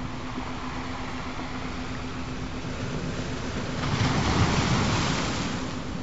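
Ocean waves washing on a shore, one wave swelling louder about four seconds in and then falling back. A steady low tone hums underneath.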